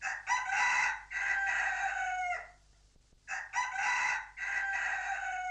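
Rooster crowing twice, each crow about two seconds long and ending in a falling note.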